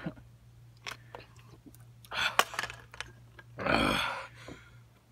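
A man chugging beer from a punctured can: a few small clicks and swallowing splashes, then a heavy gasping breath out about four seconds in as he finishes.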